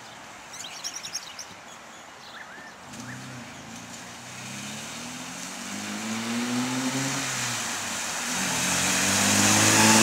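Holden VG Commodore ute's V6 engine pulling away through the gears of its 5-speed manual: the engine note rises, drops at a gear change about 7.5 s in, then climbs again as the car gathers speed and grows louder toward the end.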